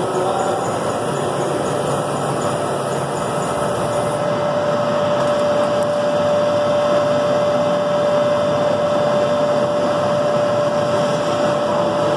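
Mandelli CNC milling machine running: a steady mechanical noise with a steady whine. A high hiss cuts out about four seconds in.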